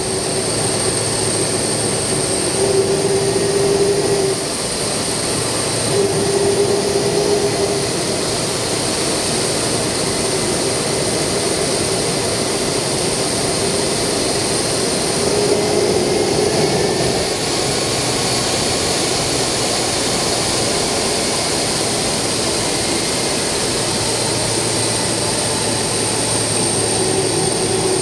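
Turbofan engines of large jet airliners, an Airbus A340 and a Boeing 767, running on the ground: a steady high whine over a broad rushing noise, with a lower hum that swells and fades several times.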